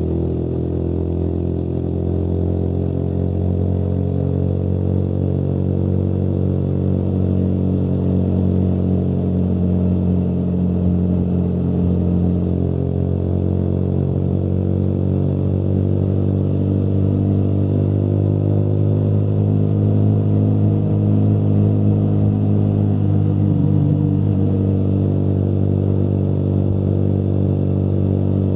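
Motorcycle engine running steadily under way, its pitch drifting gently up and down with a short wobble a little over three-quarters through.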